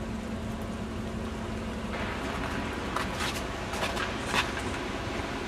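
A faint steady hum, then about two seconds in the steady running noise of a vehicle moving along a road, with a few sharp clicks a second or so apart near the middle.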